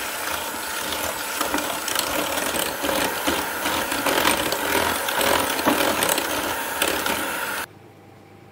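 Electric hand mixer running, its two wire beaters whisking sugar, melted butter and egg in a glass bowl, with irregular clicking throughout. It cuts off abruptly about a second before the end.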